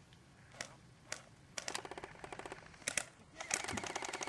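Airsoft guns firing: a few single shots, then a rapid full-auto burst of clicking shots about a second and a half in, and another burst starting near the end.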